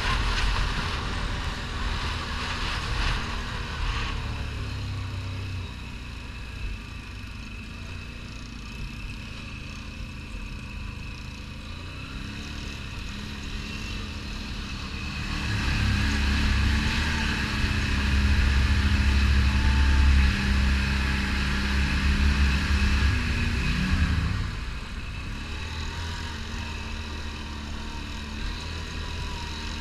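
ATV engine running while the quad rides over gravel, heard from the handlebars. About halfway through it grows clearly louder under more throttle for some eight seconds, then eases back about three-quarters of the way through.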